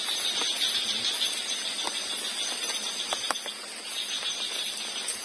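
Night insects chirping steadily in a high, pulsing drone, with a few light clicks of tableware as plates and cups are handled.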